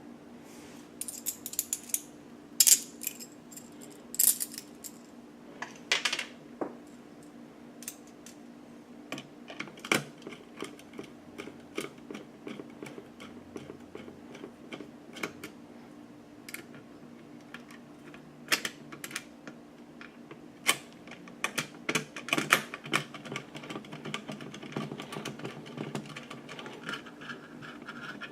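Irregular small metal clicks and taps of a screwdriver turning screws into a Noctua CPU-cooler mounting bracket, with the small metal parts being handled. There is a dense run of clicks near the end.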